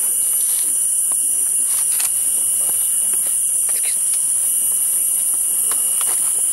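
Steady, high-pitched drone of rainforest insects, unbroken throughout, with a second steady lower buzz beneath it. Faint scattered clicks and snaps sound here and there.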